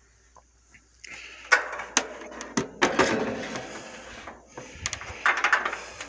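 Handling noise: irregular rustling and knocking with sharp clicks, in two spells, the first starting about a second in and the second near the end.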